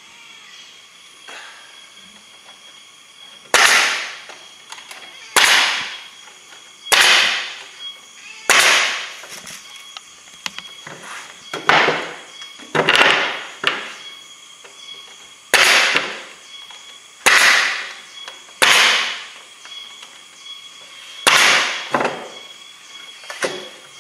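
Pneumatic coil nailer driving nails into the wooden boards of a beehive box: about a dozen sharp shots, roughly one every second and a half from a few seconds in, each trailing off in a brief hiss.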